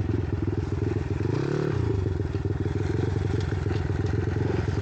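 Monkey bike's small single-cylinder engine running under way at moderate revs, briefly revving up about a second and a half in and dropping back.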